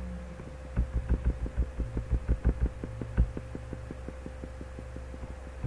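Steady electrical hum with a fast, even ticking pulse of about eight ticks a second, and a run of low thumps from about one to three seconds in.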